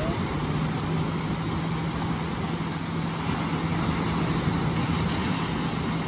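An engine running at a steady, even pitch, over wind and surf noise.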